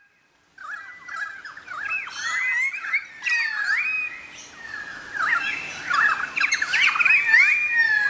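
A chorus of many wild birds calling at once: overlapping chirps and squawks with quick rising and falling notes, starting about half a second in.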